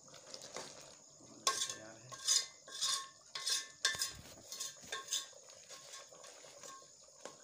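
Metal spoon stirring a whole chicken in curry gravy in a metal pot. A run of scrapes and clinks against the pot's side comes about one or two a second from about a second and a half in, then it eases off near the end.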